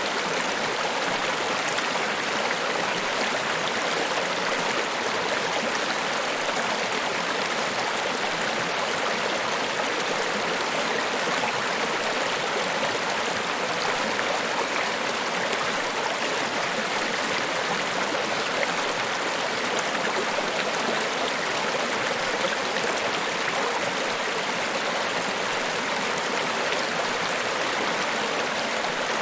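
Niagara Falls: a steady, even rush of falling water, mostly hiss-like with little deep rumble.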